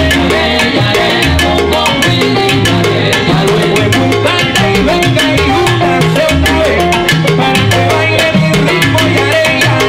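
Salsa big band playing live, with a bass line moving in short held notes under hand percussion and horns, keeping a steady, driving dance rhythm.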